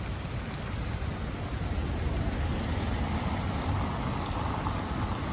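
Traffic on a rain-soaked street: a steady hiss of car tyres on the wet road and rain, over a low traffic rumble.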